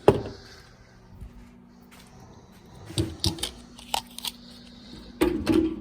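Cordless power tools being picked up and set down on a hard surface: a sharp knock just after the start, then scattered clatters and knocks in the second half, the loudest near the end, over a faint steady hum.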